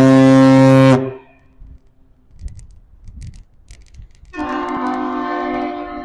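Ship's horn of the bulk carrier Federal Delta sounding a very loud, deep blast about a second long. About four seconds in, a second, higher-pitched horn starts and holds.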